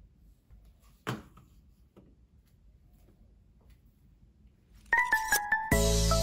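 Quiet room with a single sharp knock about a second in. Near the end, background music starts with a few quick high notes, then a full lofi track with a steady bass comes in.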